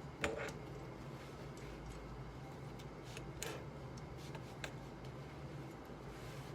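Small desk noises while studying: a few sharp clicks and taps, the loudest just after the start, over a steady low room hum.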